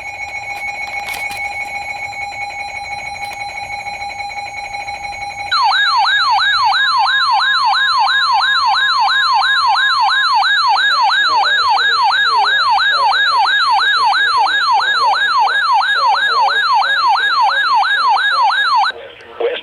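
Weather radio alert alarm for a severe thunderstorm warning. It opens with a steady electronic tone for about five seconds, then switches to a loud, fast warbling siren tone that sweeps up and down about three times a second. A steady tone sits underneath for a few seconds, and the alarm cuts off just before the end.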